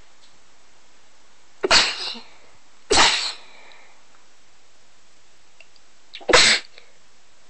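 A person sneezing three times: two sneezes a little over a second apart, then a third a few seconds later. The sneezes are induced.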